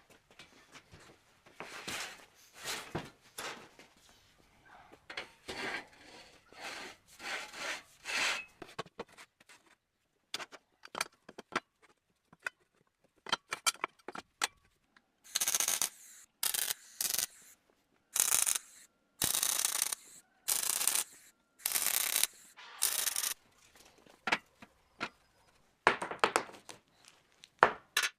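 A homemade machine at work, making a run of short rubbing and scraping strokes. They come irregularly at first and settle to about one stroke a second in the second half.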